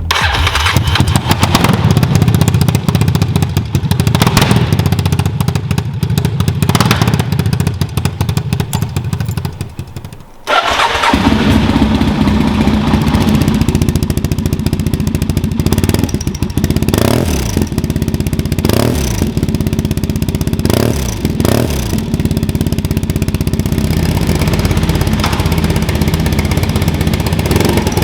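Yamaha TDM 850 parallel-twin motorcycle engine running through an aftermarket or stock exhaust. The sound falls away about ten seconds in and comes back abruptly. Later there are three quick throttle blips, the revs rising and falling each time, before it settles back to a steady idle.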